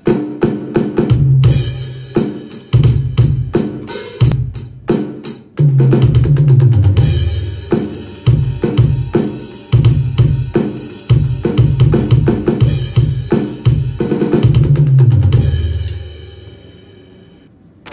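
Music driven by a drum kit: a steady beat of bass drum, snare and cymbals over low sustained notes, fading out near the end.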